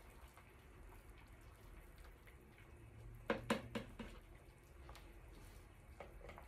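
Fish and tomato soup simmering in a stainless steel pot while a ladle stirs it, a faint steady bubbling. About halfway through comes a quick run of three or four knocks of the ladle against the pot.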